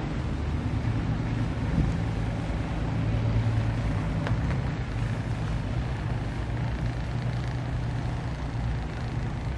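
A boat's engine running steadily while underway, a constant low drone with an even rushing noise of water and air over it.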